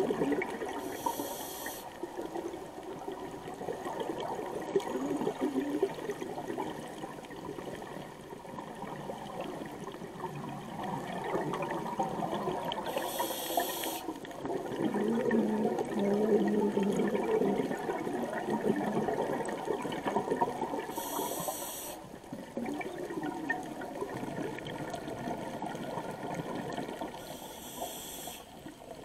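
Scuba diver breathing through a regulator underwater: four short hissing inhalations about seven to eight seconds apart, each followed by a long bubbling exhalation.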